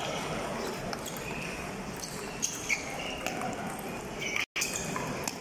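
Table tennis balls clicking off bats and tables in a large hall with several matches in play, over a background of distant voices. The sound cuts out completely for a split second near the end.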